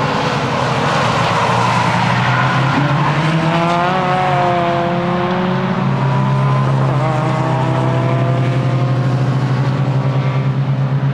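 Tuned Nissan S15 Silvia engine driven hard on track, its pitch climbing and dropping as the car accelerates and eases off, then holding steady for the last few seconds.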